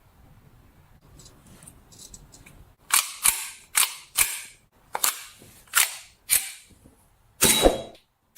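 Toy blowback pistol firing: about seven sharp, snappy shots at uneven intervals starting about three seconds in, the last one near the end longer, after a few faint handling clicks.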